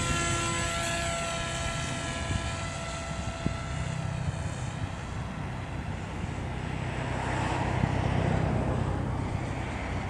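Electric RC model plane's motor and propeller whining in flight, its pitch wavering as it passes, fading out over the first few seconds. Then a rushing noise swells near the end.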